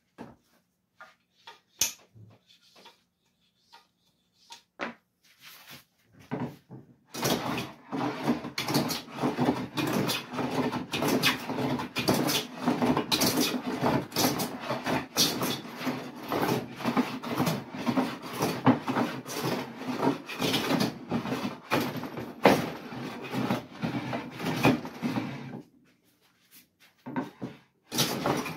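Jointer plane being pushed in repeated strokes along a cherry board, the iron shaving the wood as the flattened stock is smoothed. A few separate clicks and knocks come first; the planing then runs on for about eighteen seconds, stops for a couple of seconds, and starts again near the end.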